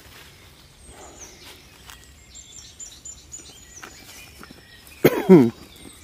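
Small birds calling faintly and high in a series of short repeated notes, with soft rustles of steps through dry fallen leaves. About five seconds in, a loud, short vocal sound from a person falls in pitch, like a grunt or groan.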